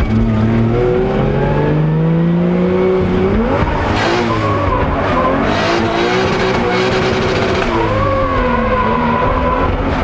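In-car sound of a drift car's engine revving hard and falling back through a drift, climbing to a peak about three and a half seconds in, dropping sharply, then rising and falling again, with a second dip and climb near the end. Tyre squeal runs over the engine.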